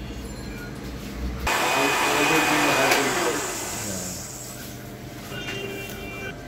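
Countertop electric blender switched on about a second and a half in, whirring loudly as it blends a blueberry smoothie, then winding down with falling pitch after about two seconds.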